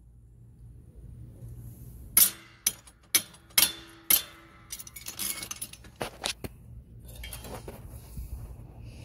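Several sharp metallic clinks and knocks, some in quick succession, as a small bent sheet-metal patch piece is handled against other metal.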